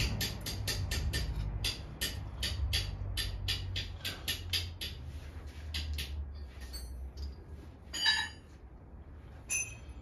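Metal valve-train parts clinking on a Nissan RB20 cylinder head as its valves are taken out, with two louder ringing clinks near the end. Before that, a fast even ticking, about four a second, over a low hum, fades out in the first half.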